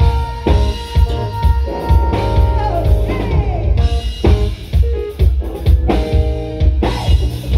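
Live band playing a song: drum kit, electric guitar and keyboard over a steady beat, with a long held high note that slides down about two and a half seconds in.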